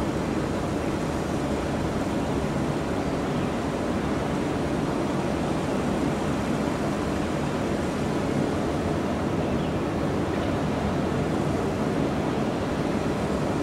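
Steady low rumble and hiss of distant airport noise, even throughout with no distinct events.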